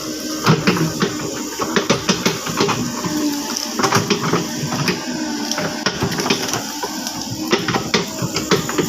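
Caterpillar 307.5 mini excavator at work, its engine running under frequent irregular knocks and clanks.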